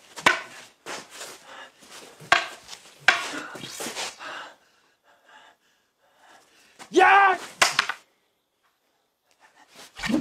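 Fight scuffle: a quick run of swishes and sharp hits with hard breathing in the first four seconds or so, then a man's short strained cry about seven seconds in, and a few light knocks near the end.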